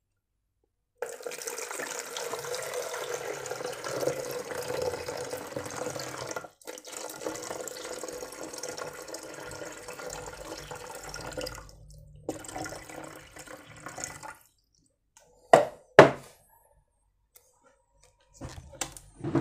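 Water poured from a container into a plastic tub, splashing and trickling steadily for about thirteen seconds with two brief pauses. Two sharp knocks follow a couple of seconds later.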